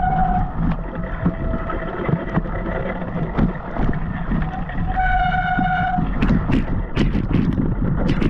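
Mountain bike ridden over wet, muddy ground in wind and rain: wind buffeting the microphone over a steady rumble of tyres and bike with scattered knocks, and a steady high squeal briefly at the start and again for about a second in the middle.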